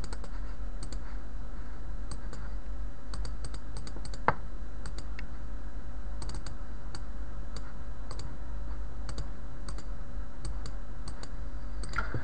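Scattered, irregular clicks of a computer mouse and keyboard, with one louder click about four seconds in, over a steady low electrical hum.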